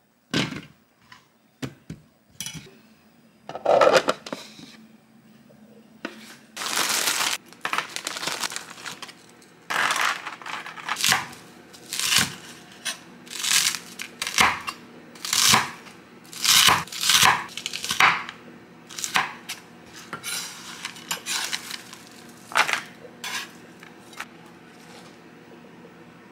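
Chef's knife cutting through frozen, frost-covered bacon on a wooden cutting board: a string of short, rough crunching strokes, about one a second. A longer tearing noise comes about seven seconds in, with a few knocks of kitchen handling before it.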